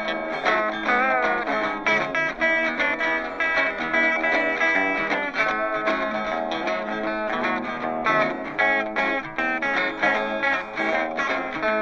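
Background music: guitar-led track with quick plucked notes and some electric guitar.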